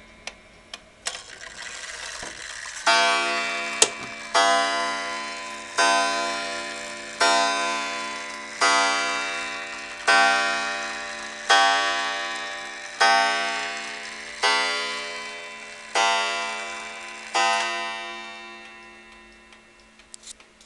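Victorian William L. Gilbert 8-day gingerbread shelf clock striking eleven o'clock: eleven ringing strokes about one and a half seconds apart, each dying away slowly. Faint clicks of the movement come before the first stroke, which falls about three seconds in.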